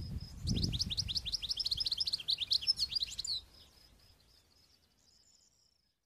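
European goldfinch singing: a fast, high twittering run of notes for about three seconds, then fainter notes fading out near the end. A soft low thud comes just before the song starts.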